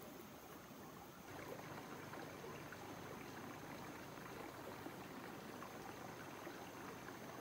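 Shallow rocky stream trickling and burbling, faint and steady, growing a little louder about a second in.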